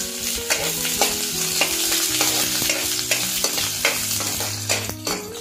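Sliced onions sizzling as they fry in hot oil in a steel kadai, with a metal ladle stirring them and repeatedly scraping and tapping against the pan.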